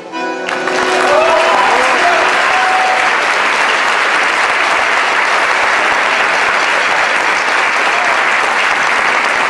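A hall audience applauding steadily, with a few shouts of approval in the first couple of seconds, as the last held chord of the string ensemble dies away at the start.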